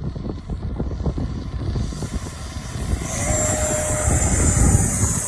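The 80mm electric ducted fan of a Freewing Avanti S RC jet running at high power on its takeoff roll: a rushing roar over a heavy low rumble, with a high fan whine coming in about three seconds in as the sound grows louder.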